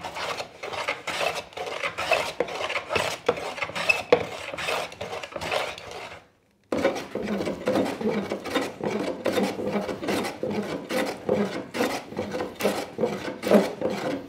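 Hand plane shaving a spalted wood board in quick, repeated short strokes, each a brief scraping swish. There is a short silent break about six and a half seconds in, after which the strokes resume along the board's edge.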